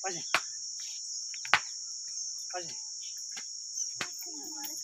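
Steady high-pitched insect chorus, with a few sharp clicks or knocks over it, the loudest about a second and a half in.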